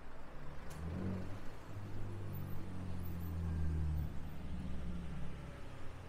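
Cars driving past close by on a narrow street, with a low engine hum that builds and is loudest about three to four seconds in.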